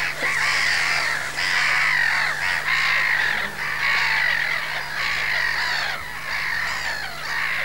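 A dense chorus of many harsh, croaking animal calls overlapping without a break, thinning out near the end.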